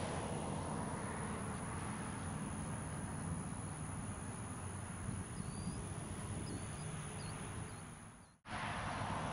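Outdoor field ambience: a steady hiss over a low rumble like distant traffic, with a few faint, short, high chirps about halfway through. The sound dips out sharply to near silence a little before the end, then comes back.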